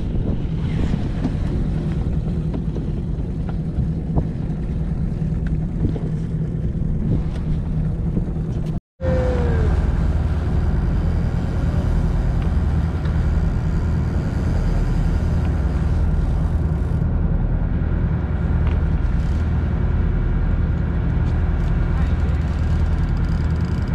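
Steady low drone of a fishing boat's engine running, with wind and water noise over it. The sound drops out for an instant about nine seconds in.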